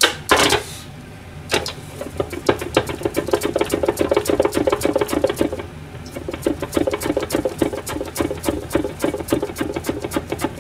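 A carrot being slid back and forth over the blade of a box mandoline slicer: a quick rhythmic scraping of about four to five strokes a second, with a short pause just before the middle. A couple of knocks at the very start.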